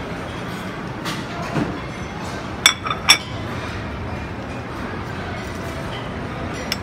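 Buffet restaurant room noise: a steady murmur of diners, with two sharp, ringing clinks of tableware about three seconds in and a fainter one near the end.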